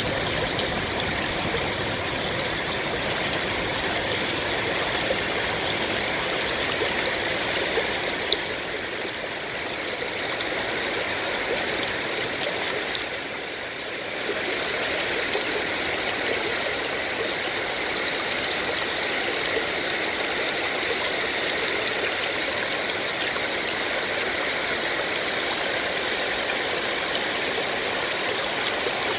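Water pouring over a low-head river dam, a steady rushing spill, briefly a little quieter about halfway through.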